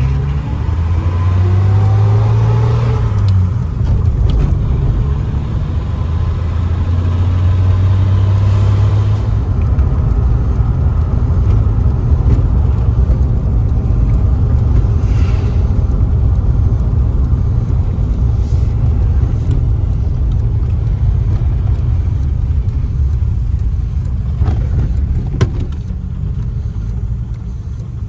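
An old Plymouth car being driven: the engine pitch rises as it accelerates over the first few seconds, then it runs steadily at cruising speed with a heavy low road and engine rumble.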